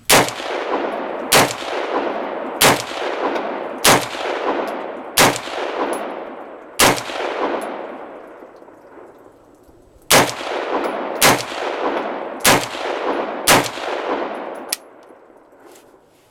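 AR-15 rifle fired in semi-automatic, ten shots each followed by a long echoing tail: six shots about a second and a quarter apart, a pause of about three seconds, then four more about a second apart, and a faint click after the last.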